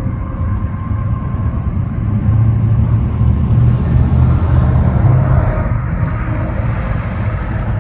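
Cars and a pickup truck driving past on the road, a low engine-and-tyre rumble swelling about two seconds in and easing near the end.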